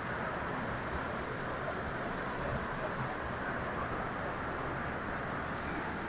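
Steady rushing roar of a muddy mountain river in spate, swollen by rain.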